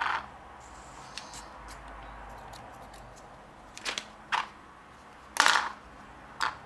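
Scissors snipping yarn, a few short sharp snips with the loudest about five and a half seconds in.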